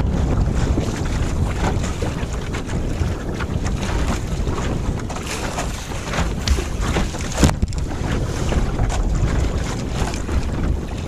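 Strong wind buffeting a smartphone microphone mounted on a sailboat's gunwale, with water splashing and slapping against the hull as it sails. One sharper knock about seven and a half seconds in.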